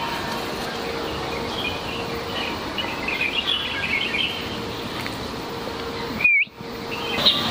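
Small birds chirping and twittering over steady outdoor background noise. The sound drops out briefly about six seconds in.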